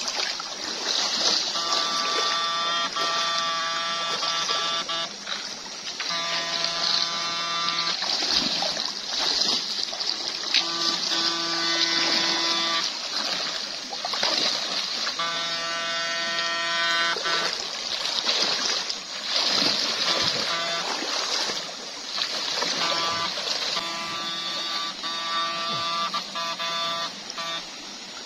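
Backpack electric fish stunner buzzing with a steady tone, switched on and off again and again in stretches of a second or two, over rushing stream water and splashing from wading legs.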